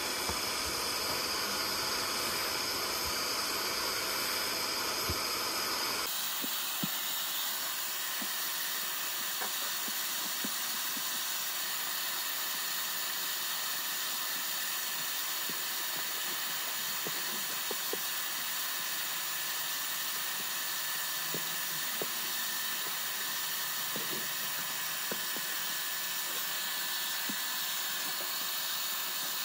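Portable carpet extractor running steadily as its hand tool sprays and sucks water back up through the carpet, a steady hiss. About six seconds in the sound changes suddenly, its low rumble dropping away.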